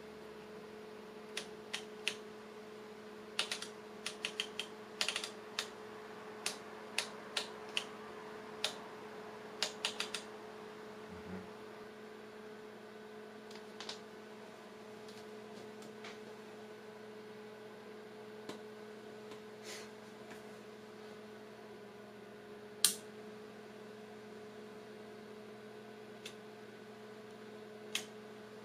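Sharp clicks of the front-panel switches and knobs on an S1-54 valve oscilloscope being set: a quick run of them in the first ten seconds, then a few spaced clicks, over a steady hum.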